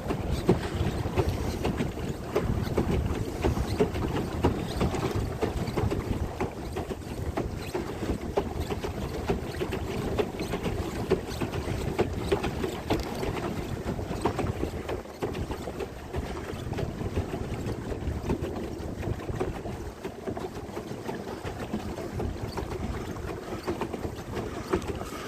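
Wind buffeting the microphone in a steady, gusty rumble, with a faint steady hum underneath.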